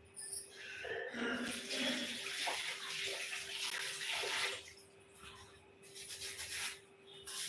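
Butter simmering into ghee in a stainless steel pan on a gas flame: a sizzling, bubbling hiss as the water cooks out, swelling for a few seconds and then easing to faint crackles, over a faint steady hum.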